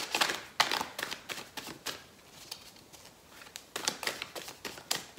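Golden Girls tarot cards being shuffled by hand, packets of cards sliding and flicking against each other in quick clicks and taps. The clicks come in a burst in the first two seconds, go quieter for about a second and a half, then pick up again.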